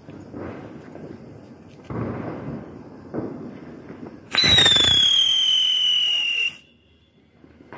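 Ground firework whistling loudly for about two seconds, its pitch falling slowly, over a rushing hiss, then cutting off suddenly. The whistle starts a little past halfway, after some softer noise.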